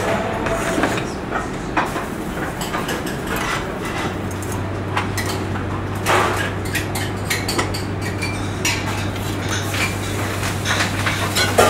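Restaurant kitchen clatter: plates and utensils clinking and knocking at irregular moments over a steady low hum.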